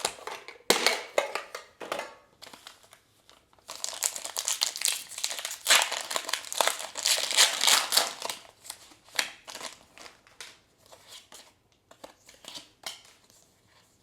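Foil booster pack wrapper crinkling as it is opened and handled, densest for several seconds in the middle, with lighter crackles and small clicks before and after.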